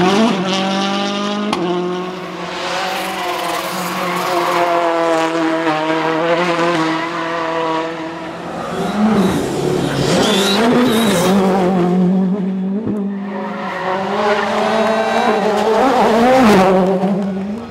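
World Rally Car engine revved hard as the car spins donuts, its pitch held high, dipping and climbing again a few times, with tyres squealing.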